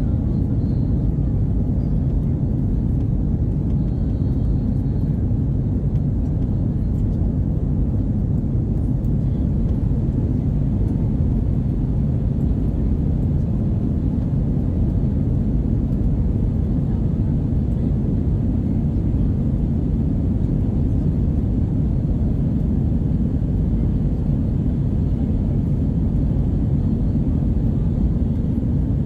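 Steady low rumble of an Airbus A320-200's jet engines and rushing air, heard inside the passenger cabin during takeoff.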